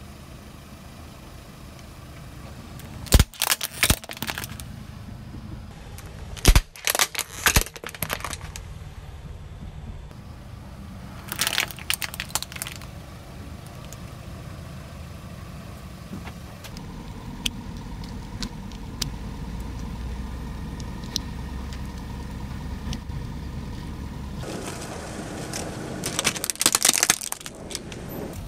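A car tyre rolling over a hard plastic toy figure, which cracks and snaps in three sharp bursts in the first half, over the low steady hum of the car. A further spell of crackling comes near the end.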